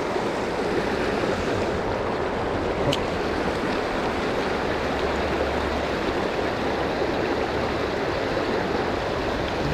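Shallow river water rushing steadily over rocks and through rapids.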